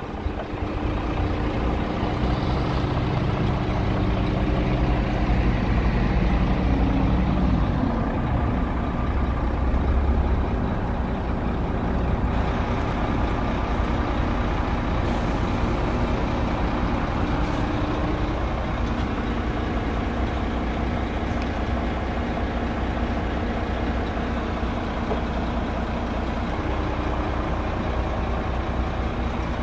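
Scania R truck's diesel engine idling steadily.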